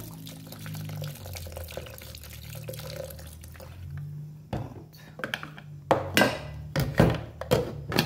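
Liquor poured from a bottle into a plastic blender jar holding lime, sugar and ice, a steady splashing pour for about the first four seconds. Then comes a run of sharp knocks and clunks as the blender jar and base are handled.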